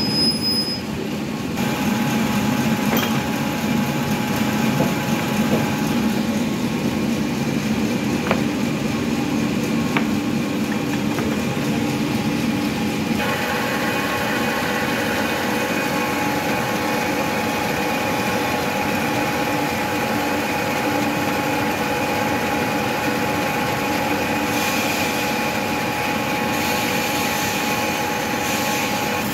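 Bandsaw mill running: its motor, V-belt drive and blade wheels turning with a steady hum and a whine of several tones. About halfway through, a higher whine grows louder.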